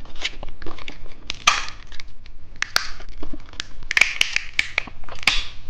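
Crackling and crunching of a small candy and its plastic packaging being handled: a run of sharp clicks mixed with short rustling bursts.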